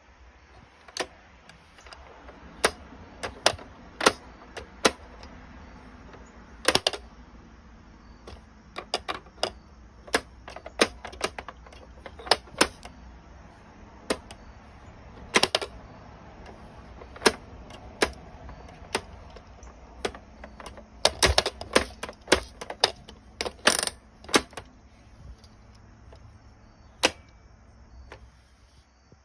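Irregular sharp clicks and taps from an interactive toddler activity toy or book being handled, with its parts pressed, turned, slid and snapped shut. The clicks come in a quick cluster about two-thirds of the way through.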